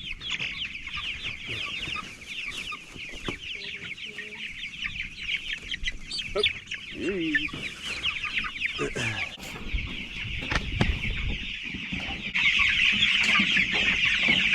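A flock of nearly three-week-old chicks peeping nonstop, many short, high, falling cheeps overlapping into one continuous chorus; it grows louder about twelve seconds in.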